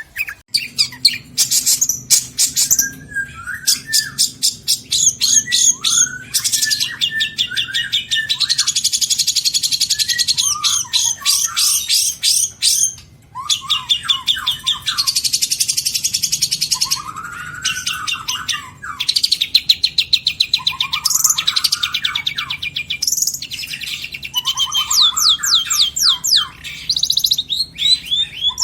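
Long-tailed shrike (cendet) singing a fast, nearly continuous song of rapid high trills and chattering note runs, with short lower slurred whistles between them, stringing together phrases mimicked from other birds. There are brief pauses about a third and about four fifths of the way through.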